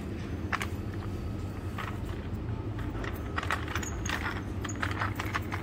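Steady low hum of a supermarket, with footsteps on a tiled floor and light clicking and clinking that come more often in the second half.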